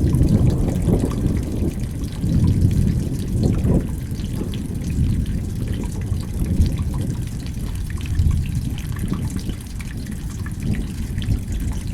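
Rain falling, with water trickling and dripping over a low rumble that swells and eases.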